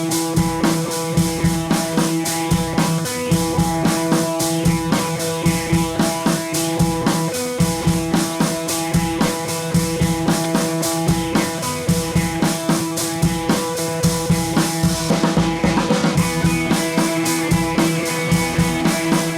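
Background music: an upbeat track with a steady drum-kit beat, bass drum and snare, over sustained guitar chords.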